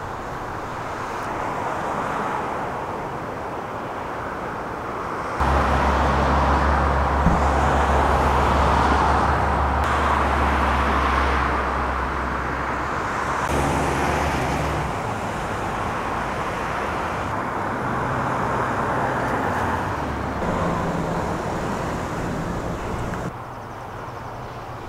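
Outdoor road traffic noise, with a steady low engine hum from a motor vehicle running for several seconds in the middle. The background changes abruptly twice, at cuts between recordings.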